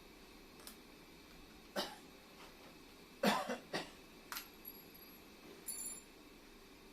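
Scattered short clicks and knocks of tools and metal parts being handled, loudest about three seconds in, with brief high metallic rings about four and a half and five and a half seconds in.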